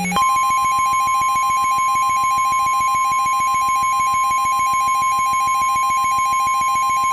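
NOAA Weather Radio warning alarm tone (the 1050 Hz single-tone alert), sounding the start of a severe thunderstorm warning broadcast. It is one loud, steady, high-pitched beep held without a break, starting just after the opening. A faint, rapidly pulsing buzz runs underneath it.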